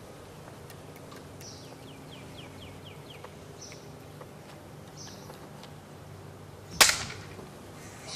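Faint bird chirps and a quick run of falling chirps over a low steady hum, then one sharp knock about seven seconds in that dies away quickly.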